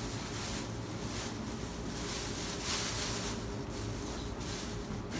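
Irregular rustling and handling noise as items are moved about on a bed, loudest about two and a half seconds in, over a steady low hum of room noise.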